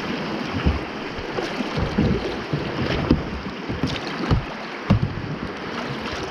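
Kayak paddle strokes splashing in river water, a low splash about once a second, over the steady rush of moving water.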